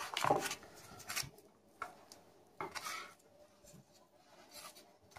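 Gloved hands moving raw chicken on a plastic cutting board and a foam tray: a few short, quiet scrapes and rubs, the loudest about a quarter second in.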